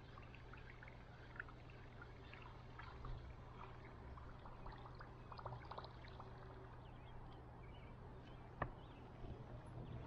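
Faint trickling and dripping of water along a canoe's hull as it glides on calm water, with scattered small drips and one sharp click near the end, over a low steady hum.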